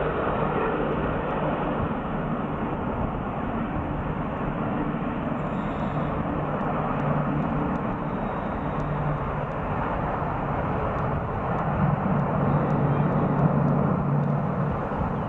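The six turbofan engines of an Antonov An-225 Mriya running at takeoff power as it accelerates down the runway: a steady jet roar with a low hum under it, growing a little louder in the last few seconds.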